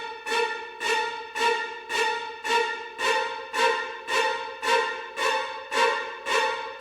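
A single pitched musical note struck over and over in a steady pulse, about two times a second, each one starting sharply and fading quickly: an eerie, repetitive horror sound effect.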